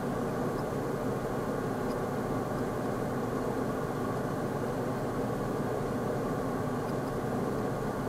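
Rack storage server running with its Noctua fans at full speed: a steady, even whoosh of fan air and hum, with no changes in speed.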